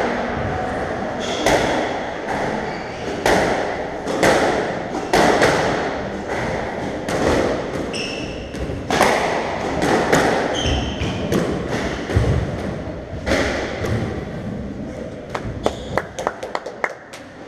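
Squash rally: the ball smacking off rackets and the court walls about once a second, each hit echoing in the enclosed court, with short squeaks of shoes on the hardwood floor between hits. Near the end comes a quick run of lighter, sharper ticks.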